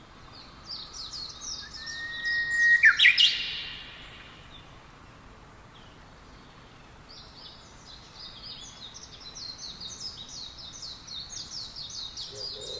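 Songbirds chirping in quick high-pitched runs, with a louder rising sweep about three seconds in. A pause of a few seconds follows, then a long run of rapid chirping starts about seven seconds in.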